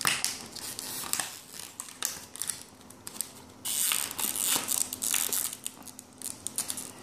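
Small plastic Shopkins toy figures tapping and clicking as they are set down one by one on a wooden tabletop, with rustling of handling, longest from about halfway through. A faint steady hum sits underneath.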